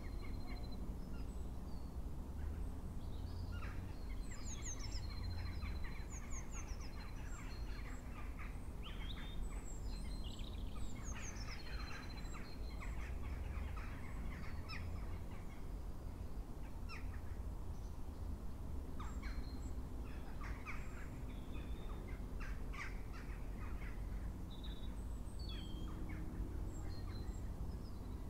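Birds calling outdoors: clusters of short, harsh calls with thinner high chirps in between, over a low steady rumble.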